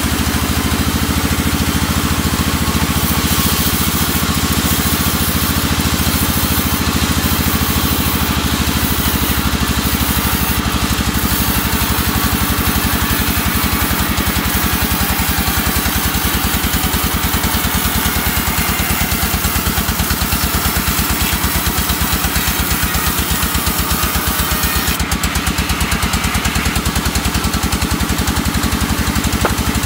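Band saw at a sawmill running steadily while its blade rips lengthwise through a teak plank: a constant low machine drone with the hiss of the cut over it.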